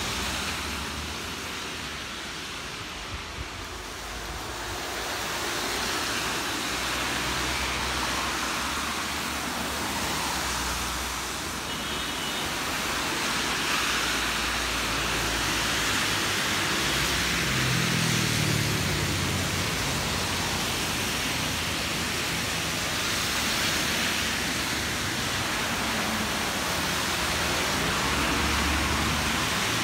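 Rain and traffic on a wet city street: a steady hiss of rain and tyres on the soaked road, swelling and easing as cars pass, with a low engine rumble from a passing vehicle about two-thirds of the way through.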